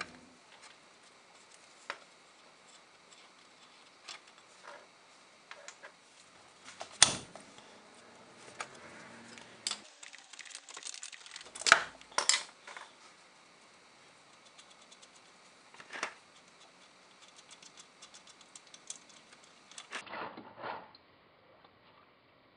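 Scattered metallic clicks, clinks and knocks from a socket ratchet and the fill and drain plugs being worked loose on a rear differential housing, to drain the old differential fluid. The loudest knocks come about seven seconds in and again about twelve seconds in.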